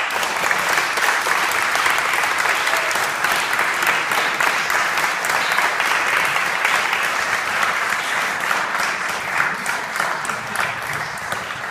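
Small audience applauding: dense, steady clapping that starts suddenly and eases slightly near the end.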